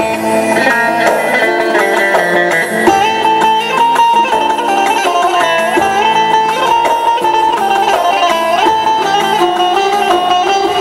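Instrumental break of a Turkish damar song: an electric bağlama (long-necked saz) plucking the melody over a keyboard's accompaniment, the melody gliding between notes.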